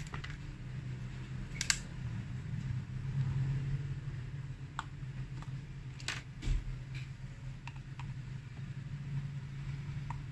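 Scattered sharp plastic clicks as the back cover of a Vivo Y12 phone is prised off its clips and handled, with a louder knock about six and a half seconds in, over a low steady hum.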